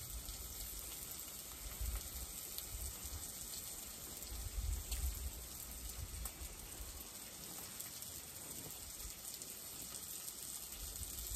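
Bacon sizzling in a frying pan on a camp stove, a steady soft hiss like light rain, with a few low rumbles mixed in.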